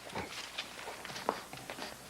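A few soft footsteps on a floor, spaced out over a low background hiss.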